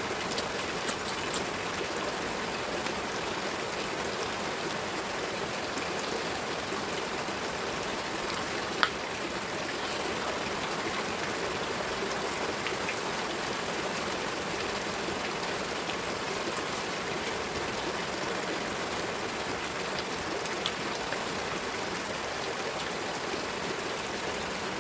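Steady rain, with a sharp click about nine seconds in.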